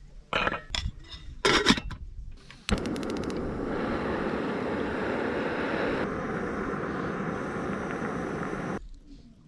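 A few metal knocks from the cooking pot, then a quick run of igniter clicks and a portable camping gas burner's steady hiss that runs about six seconds and cuts off suddenly.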